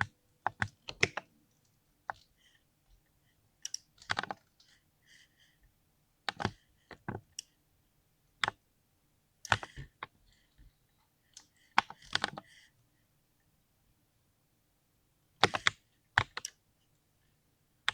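Mechanical keyboard being typed on in short, irregular runs of keystrokes, with pauses of a second or two between runs. It is a keyboard built for a 'creamy' keystroke sound.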